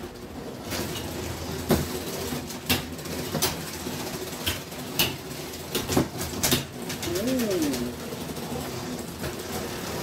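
Lego combat robots clashing in the arena: a run of sharp plastic knocks and clatters, roughly one a second, over a steady low hum. About seven seconds in comes a short rising-and-falling vocal sound.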